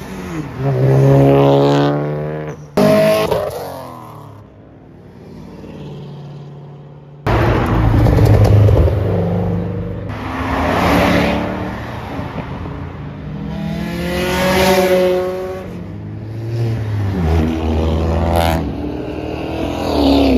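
Cars leaving one after another and accelerating hard past the roadside, each engine revving up in a rising note as it goes by. The loudest passes come about a second in, around eight seconds in, and around fifteen seconds in.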